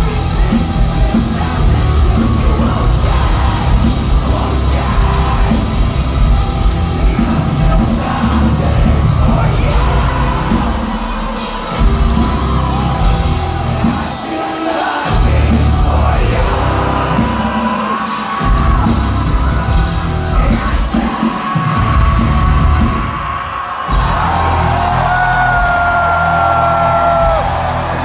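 Live metalcore band playing loud through a concert PA, heard from inside the crowd: heavy distorted guitars, bass and drums with yelled vocals. In the second half the bass and drums cut out briefly several times in a stop-start pattern, and near the end held melodic notes ring over the band.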